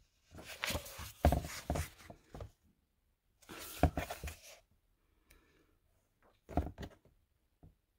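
Glossy pages of an illustrated book being turned: paper rustling and flapping in three bursts, the first the longest.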